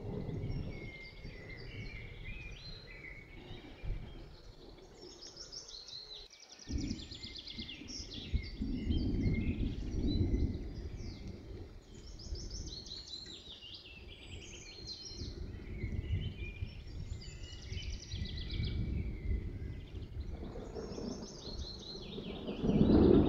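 Several birds singing, with low rumbles of thunder underneath that swell and fade; a louder thunder rumble builds near the end.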